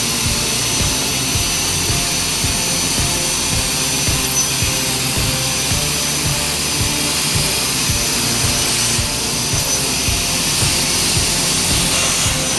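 CNC plasma cutting torch cutting steel plate: a loud, steady hiss of the air-plasma arc with an irregular low crackle underneath.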